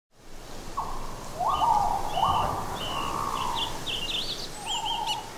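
Forest ambience with several birds calling: repeated whistles that rise and then hold a note, joined by higher short chirps and a quick trill near the end, over a low steady background hum.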